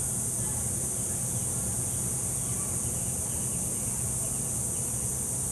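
Steady high-pitched drone of an outdoor insect chorus, crickets or katydids, unbroken throughout, over a constant low hum.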